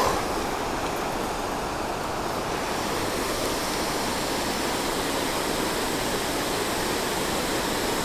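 Steady rush of water pouring over a low dam spillway into the creek.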